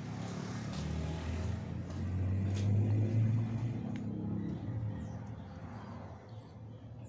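A motor vehicle passing by: a low engine rumble that builds to a peak about three seconds in and then fades away.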